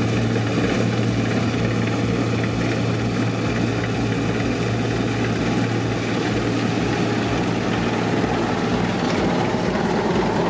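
Massey Ferguson Centora 7380 combine harvester at work in wheat: the engine and machinery running with a steady drone and a constant low hum.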